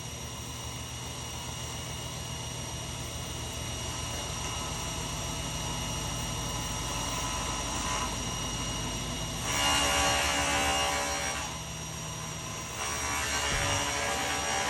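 Table saw running steadily, its blade ripping through oak plywood; the cut gets louder about two-thirds of the way in and again near the end.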